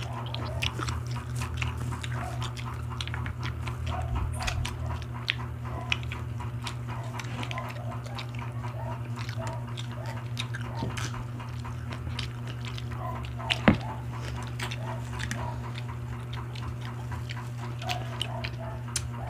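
Close-miked eating: several people chewing and lip-smacking on grilled barbecue skewers, many small wet clicks, with one sharper knock a little past the middle, over a steady low hum.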